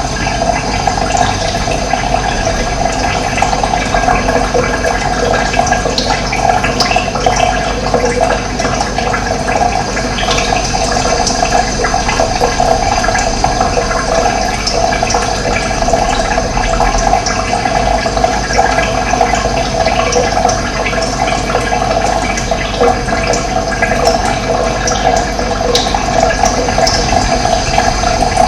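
Steady rush of running water, an even flow that does not let up.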